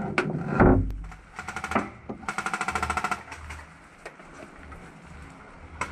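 Airsoft gun firing on full auto in two quick bursts, a rapid even rattle of about a dozen shots a second, heard from inside a steel tank hull. A heavy metal knock comes about half a second in.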